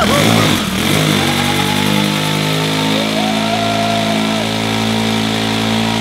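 Honda CG 125 Today's single-cylinder four-stroke engine running at high, steady revs, its rear tyre spinning in pool water and throwing up a constant spray. The revs waver at first and settle about a second in.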